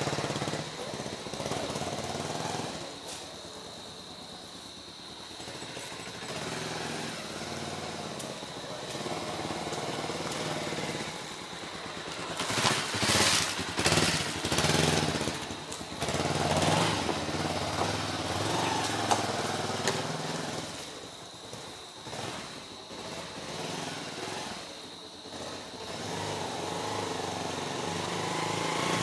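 Bajaj Avenger cruiser's single-cylinder engine running as the motorcycle is ridden around, growing louder as it comes close about halfway through and fading as it moves off again.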